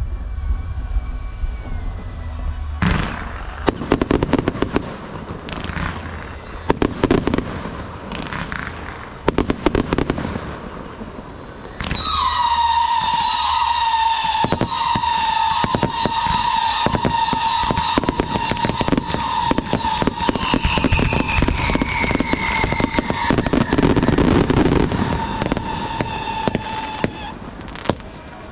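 Aerial fireworks going off, sharp bangs and crackling for the first dozen seconds. About twelve seconds in, a long steady high tone starts and falls slightly in pitch, with crackling continuing over it until it stops shortly before the end.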